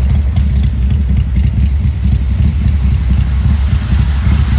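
Steady low vehicle-engine rumble, with wind buffeting the microphone.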